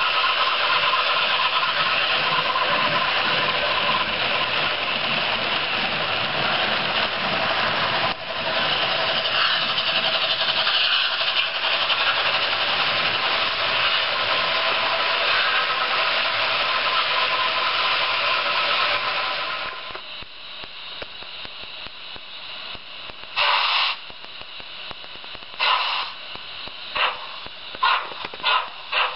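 Märklin H0 model steam train with a sound decoder running past, a steady rushing noise of wheels and digital steam sound that drops away after about twenty seconds. A model steam locomotive then gives two short steam hisses and starts chuffing, the beats slow at first and quickening near the end as it pulls away.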